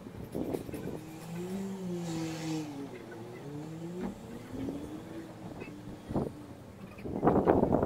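Small 50cc moped engine being ridden out of sight, its pitch rising and falling a few times as it revs up and eases off. Near the end, a loud, rough burst of noise.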